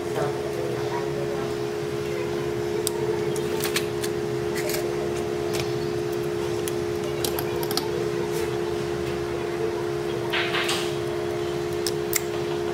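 A steady droning hum runs under light, scattered clicks and ticks of a thin prying tool working against the edge of an iPhone's frame and screen, with a short scraping rustle about ten seconds in.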